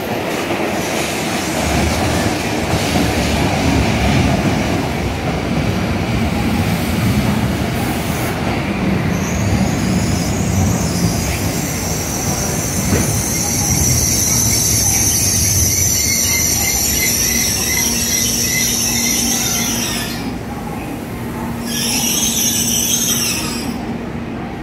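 N700S Shinkansen train running into the platform and slowing, its wheels rumbling on the rails. A high-pitched squeal sets in about a third of the way in as it brakes and holds for about ten seconds. It stops, and one last short squeal comes just before the train halts.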